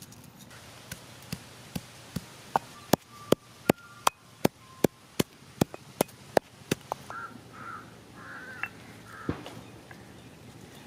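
Heavy stone pestle pounding cloves and cinnamon bark in a stone mortar: sharp knocks about two and a half a second, stopping about seven seconds in. A few bird calls follow near the end.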